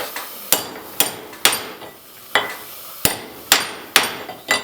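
Hammer striking metal: about eight sharp blows at an uneven pace, each with a brief metallic ring.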